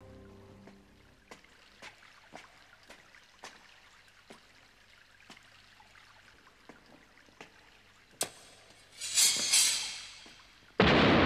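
Faint ticks every half second or so, then a sword slid out of its metal-fitted scabbard with a bright ring a little after nine seconds in. Near the end a sudden loud explosion breaks in and keeps going.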